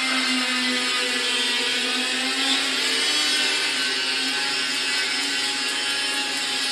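Double-wire fully automatic chain link fence machine running: a steady motor whine over dense mechanical noise from the working mechanism.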